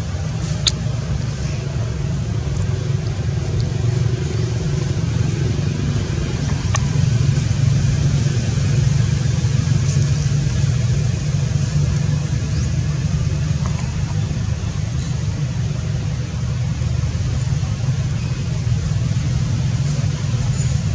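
A steady low rumble throughout, with two short clicks: one just after the start and one about seven seconds in.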